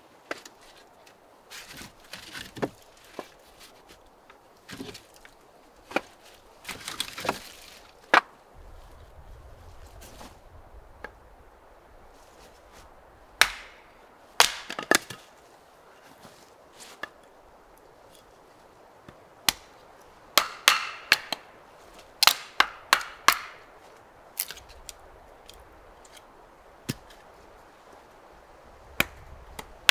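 Sharp knocks and cracks, coming irregularly: some single, some in quick clusters, with quieter gaps between.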